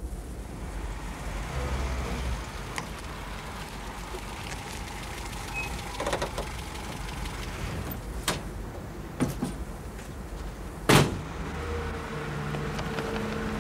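Car engine running low at idle, with a few light knocks and a car door shut hard about eleven seconds in, the loudest sound.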